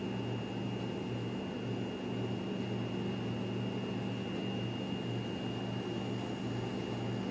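A steady machine hum, low and gently pulsing, with a thin high-pitched tone held above it and a soft hiss.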